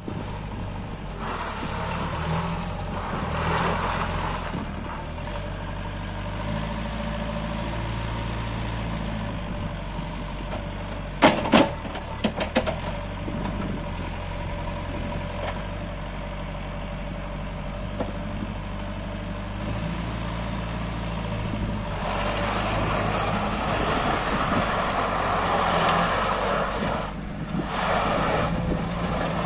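JCB 1CX backhoe loader's four-cylinder diesel engine running, its note shifting up and down. Several sharp metallic clanks come about eleven to twelve and a half seconds in, and a rushing hiss joins over the last several seconds.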